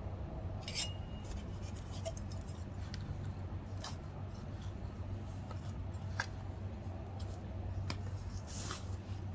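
Dry, crumbly soil being scooped by hand and with a plastic coffee cup out of a plastic bucket: scattered short scrapes and rustles of dirt against the cup and bucket wall, over a steady low rumble.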